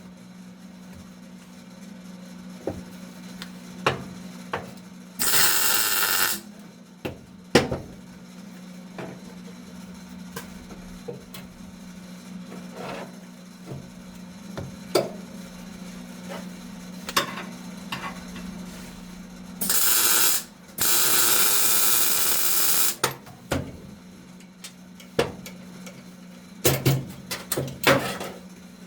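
Metal tools clicking and knocking during body-panel work, with two bursts of steady hissing (about a second, then about three seconds) over a steady low hum.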